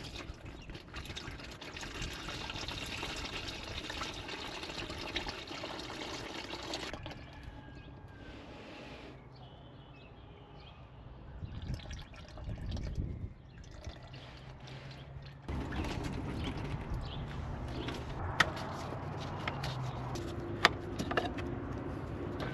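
Used engine oil pouring and trickling from the drain plug hole of a Dodge Ram 1500's 3.6 engine into a drain pan. It goes quieter and uneven for a while in the middle, then returns to a steady pour, with a couple of sharp clicks near the end.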